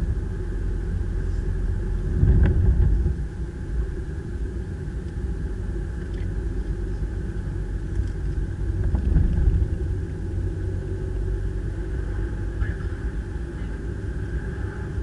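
A car driving, heard from inside the cabin: a steady low rumble of road and engine noise that swells briefly about two seconds in and again around nine seconds.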